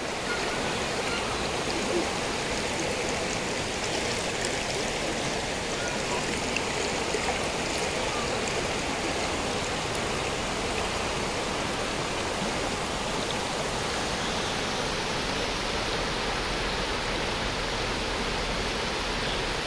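Shallow forest river rushing and splashing over rocks in a steady rush of water.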